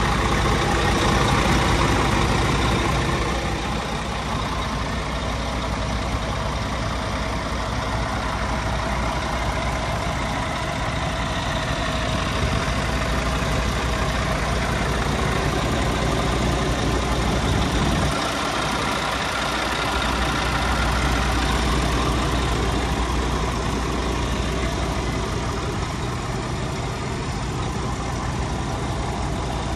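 Scania P370 tipper truck's 9-litre five-cylinder diesel engine idling steadily.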